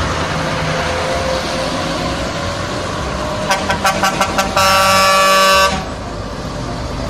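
Heavy trucks' diesel engines running as they pass. About three and a half seconds in, a truck air horn gives a quick run of short toots and then one long blast lasting about a second.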